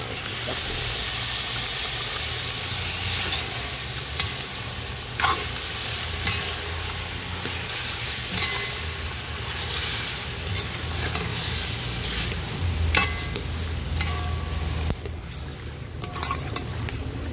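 Meat frying and sizzling in curry paste in a cast-iron pot, stirred and turned with a long metal spatula. The spatula scrapes and knocks against the pot a few times over a steady sizzle.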